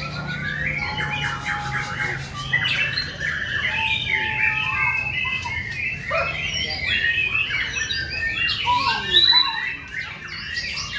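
Several caged white-rumped shamas (murai batu) singing at once in a dense, overlapping chorus of whistles, trills and chirps, with a low steady hum underneath.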